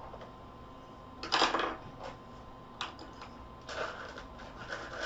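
Scattered clicks and clatter of small hard objects being handled on a desk, with one louder rattle about a second and a half in.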